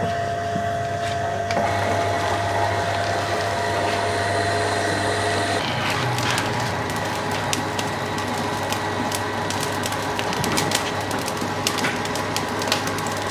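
Motor-driven noodle press running steadily with a hum, forcing rice-flour dough through the die into noodle strands. The hum changes about five and a half seconds in, and many light clicks and ticks follow.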